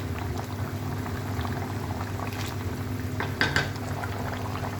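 Egg and cauliflower curry simmering and bubbling in the pan, with a few short clinks about two and a half and three and a half seconds in.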